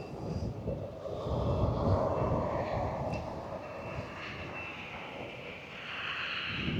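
Steady low rumbling noise, swelling about two seconds in and again near the end.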